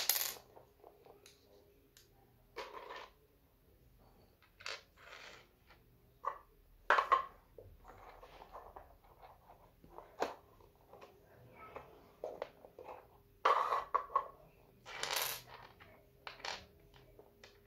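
Small plastic Playmobil pieces being handled and set down on a hard floor: scattered light clicks and knocks, with a few longer, noisier handling sounds.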